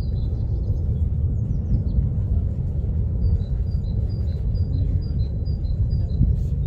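Steady low rumble of Kilauea's South Vent lava fountain erupting. Over it, a bird repeats a quick two-note chirp about three times a second, at the very start and again from about halfway to near the end.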